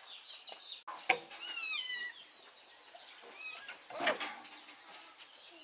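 A small kitten mewing a few times in short, wavering calls, with a sharp click about a second in and a louder knock about four seconds in.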